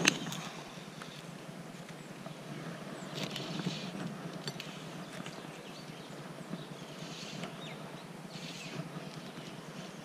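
Handling sounds of a fly rod and line during casting: a sharp knock right at the start, then three short hissing rustles of line and grass over a steady low rumble.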